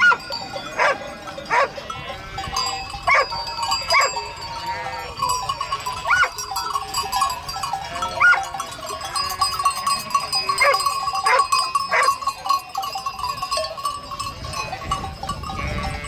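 Sheep bleating: many overlapping bleats from a flock as a steady din, with louder single bleats standing out at irregular moments.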